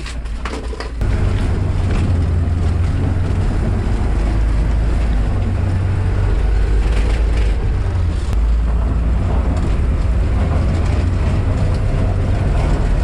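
Sno Bear tracked ice-fishing vehicle driving over the lake ice, heard from inside its cabin: a loud, steady low engine and track rumble that rises sharply about a second in.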